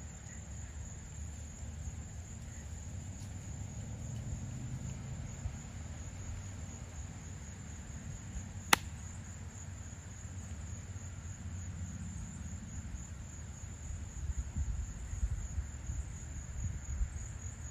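Insects, crickets or similar, trilling in a steady high chorus over a low rumble, with one sharp click about nine seconds in.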